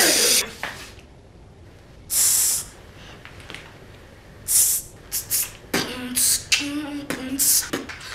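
Beatboxing: sharp hissing mouth bursts, spaced a second or two apart at first, then coming quicker with short voiced notes from about six seconds in, building into a beat.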